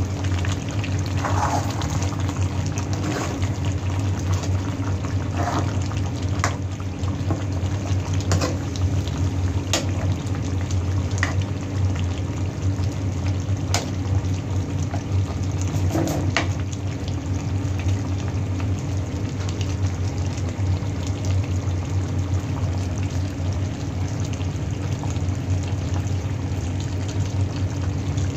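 Chicken caldereta simmering and bubbling in a nonstick pan over a steady low hum. A scattering of sharp clicks from a spoon against the pan comes in the first half, as the stew is stirred.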